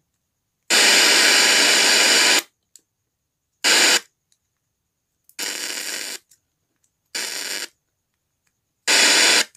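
Untuned FM radio hiss from a speaker, coming in five loud bursts with dead silence between them, the first and longest lasting nearly two seconds. Each burst comes as an RCA plug is pushed into one of the 2.1 amplifier board's speaker output sockets in turn, showing that output is live.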